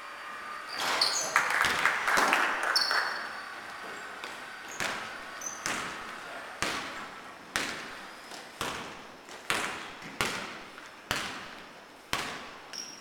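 Basketball being dribbled on a hard court, about one bounce a second, each bounce trailing off in a short echo. A few short high squeaks come in the first seconds.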